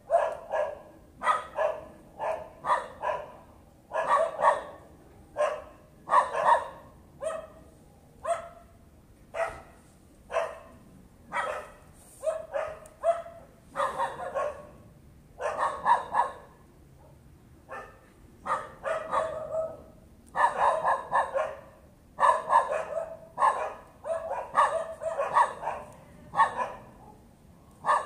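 Dog barking incessantly in quick runs of several barks at a time, with only brief pauses: the needless nuisance barking (mudaboe) that neighbours complain of.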